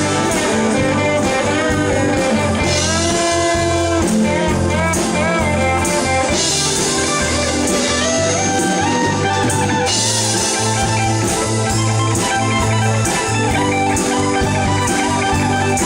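Rock music: a guitar plays a lead of bent, held notes over a steady bass line and drums.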